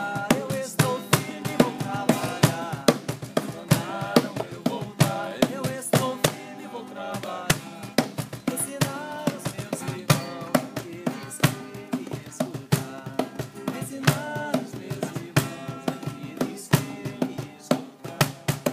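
Voices singing an Umbanda chant to the Pretos Velhos over drums beating a steady, quick rhythm.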